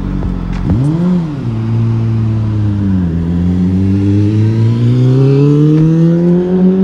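Sport motorcycle engine, loud: a quick rev about a second in, a drop near three seconds, then a steady climb in pitch as it accelerates.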